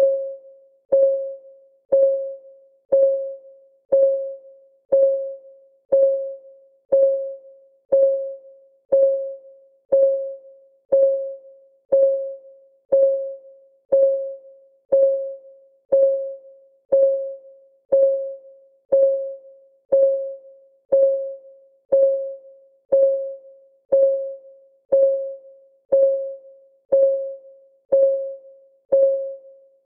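Clock ticking as a countdown timer's sound track: one tick a second, steady, each a sharp click with a short pitched tock that dies away quickly.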